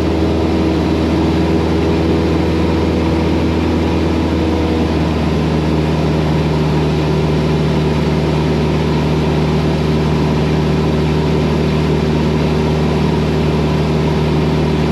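Cessna 172's piston engine and propeller droning steadily in cruise, heard through the headset intercom. The tone of the drone shifts slightly about five seconds in.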